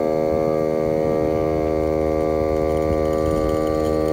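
Small electric air compressor running steadily, pumping up a stainless-steel water fire extinguisher used as a pressurised sprayer; a loud, even hum.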